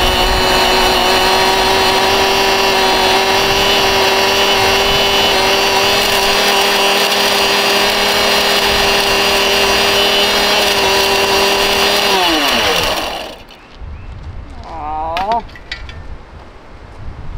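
Dirt Devil Ultra MVP vacuum cleaner's motor running with a steady whine and rushing air, then switched off about twelve seconds in and winding down with a falling pitch.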